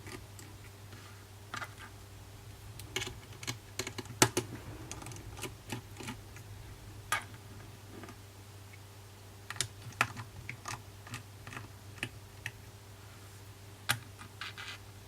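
Scattered small clicks and taps of a precision screwdriver and tiny screws on an iPhone 6s's metal cover plate as its screws are undone and set down, over a steady low hum.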